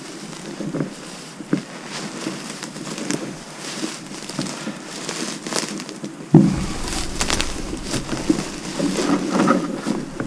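Footsteps and rustling through tall marsh grass and brush as a canoe is carried overhead, with scattered small clicks and creaks from the hull. About six seconds in there is a sudden bump, then a low rumble under heavier rustling.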